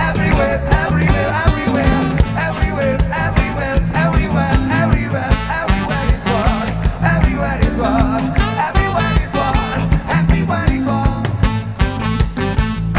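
Live reggae band playing an instrumental passage: a repeating bass line and drums under electric guitar and keyboards.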